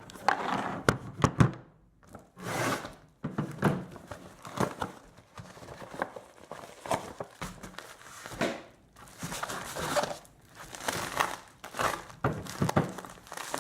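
A shipping package being opened by hand: irregular crinkling and tearing of the packaging, with a few sharp knocks as the contents are handled.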